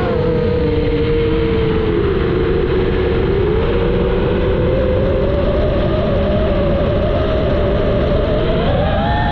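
FPV racing drone's motors and propellers whining in flight, the pitch drifting slowly down and then up with the throttle, over a steady rush of wind noise.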